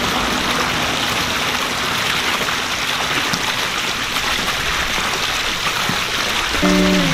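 Pool bubbler jet splashing steadily into the pool water, a continuous rushing splash; background music comes in near the end.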